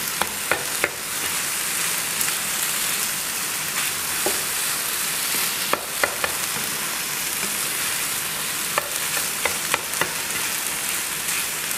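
Java rice frying in a hot pan with a steady sizzle, and a utensil clicking against the pan now and then as it is stirred.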